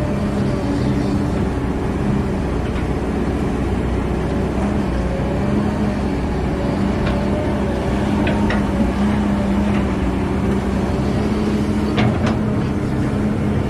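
Excavator's diesel engine running steadily under load while it digs and loads soil, with a few short metallic clanks.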